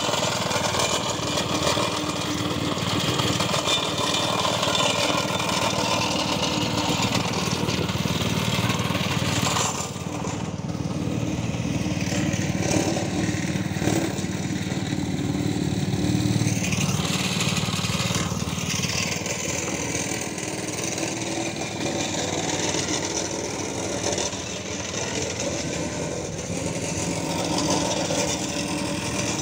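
Vibratory plate compactor's small petrol engine running steadily as the plate compacts sandy ground, the sound duller for several seconds around the middle.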